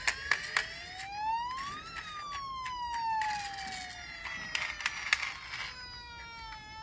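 A siren wailing in one slow cycle: it rises for about two seconds, falls over the next four, and starts to rise again near the end. Sharp clicks and taps of a die-cast toy police car's doors and parts being handled are heard over it.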